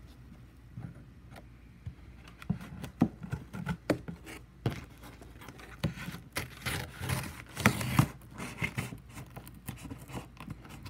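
A blade slitting and scraping along the packing tape of a cardboard box, with irregular scrapes, taps and crackles of tape and cardboard starting about two seconds in, loudest about eight seconds in.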